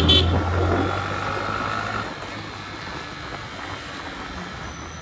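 Motorcycle engine running with road and wind noise while riding; the engine's steady drone drops away about two seconds in, leaving quieter road noise.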